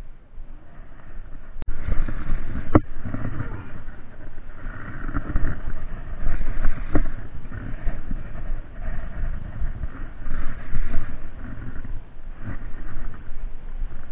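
Wind and sea noise on a small open boat, a steady rush with a low rumble that swells and fades every second or two, broken by a few sharp clicks.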